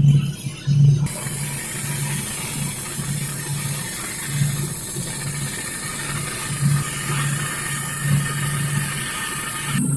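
Robot welder's arc running a weld: a steady crackling hiss that starts about a second in and cuts off suddenly just before the end.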